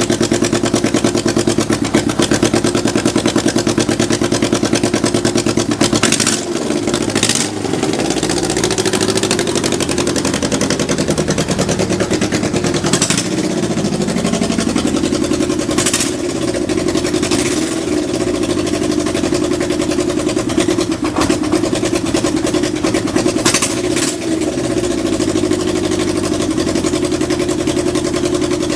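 Kawasaki Z550GP's air-cooled inline-four engine running at idle, its note shifting up and down for a while partway through, with a few short sharp noises. The idle is steady with no unusual noises, which the seller takes as a sign of a healthy engine.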